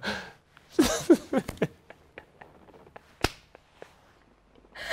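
Laughter from a man and a woman, a few light clicks, then one sharp smack about three seconds in, typical of a hand clap or slap.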